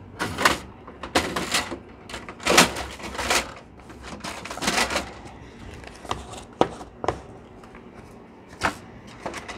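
Plastic paper cassette of a Canon printer being handled: a series of sharp clicks and knocks, with short plastic rattles, as the tray and its parts are pushed and slid.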